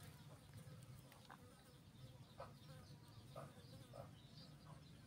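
Near silence: faint outdoor background with a low steady hum and a few soft, short chirps scattered through it.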